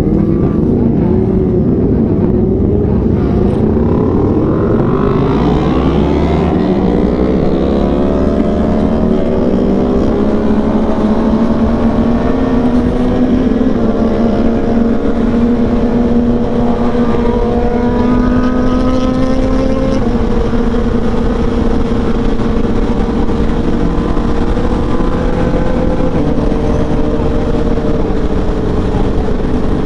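Honda CBR1000RR SP's inline-four engine pulling hard, its pitch rising, then dropping back at two upshifts before settling into a steady cruise. A low wind rumble on the microphone runs underneath.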